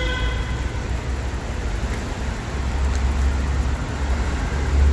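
Wind rumbling and buffeting on a phone microphone while cycling along a wet bike path, over a steady hiss, growing stronger past the halfway point. A held horn-like tone fades out in the first half second.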